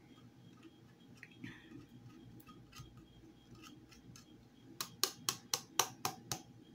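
Handheld flat stainless cheese grater grating the last small piece of cheddar over a plastic bowl: faint scraping ticks, then a quick run of about eight sharp clicks near the end.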